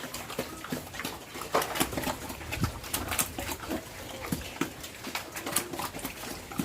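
Pigs eating mixed feed at the trough: rapid, irregular chomping and smacking, with a few short grunts.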